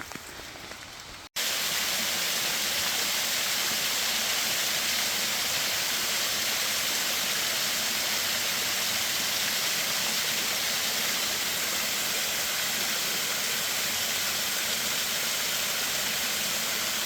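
Steady rushing of a waterfall, cutting in abruptly about a second in after a moment of quieter background.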